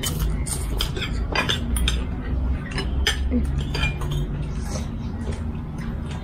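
Cutlery clinking against bowls and plates during a meal: many short scattered clinks over a steady low background rumble.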